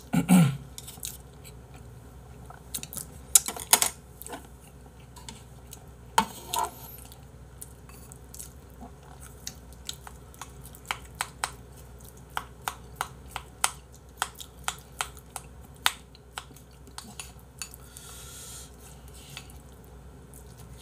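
Chopsticks and a spoon clicking and scraping against bowls as potatoes are mashed and mixed into rice and stew sauce, a run of short sharp clinks with a few louder knocks.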